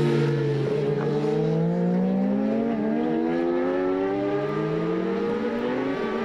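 Racing motorcycle engine accelerating hard, its pitch rising steadily over several seconds.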